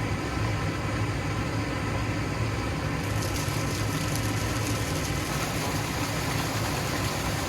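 Water truck's diesel engine running steadily, a low hum, while water is delivered into the pool. A brighter hiss joins about three seconds in.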